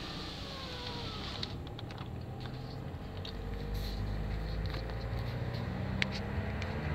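Car running along a road as heard inside the cabin: steady engine and tyre noise, with a low rumble growing louder about three seconds in. Scattered light clicks and taps, a few sharper ones near the end.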